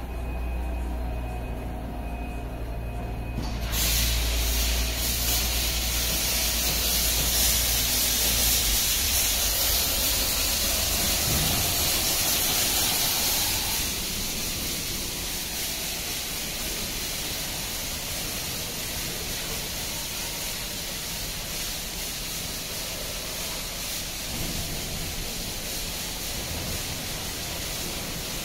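Touchless automatic car wash machine: a low motor hum, then about four seconds in its high-pressure water jets start spraying the car with a loud steady hiss, which eases somewhat about fourteen seconds in and runs on.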